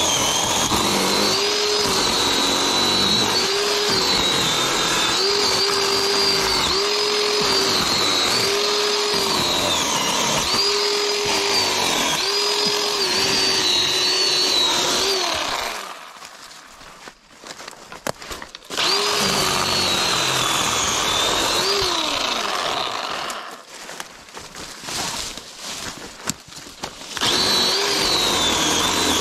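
Electric motor of a cordless, battery-powered yard cutting tool running at full speed with a steady whine. Its pitch sags briefly and recovers every second or so. It stops twice for a few seconds, about halfway through and again later, then starts up again.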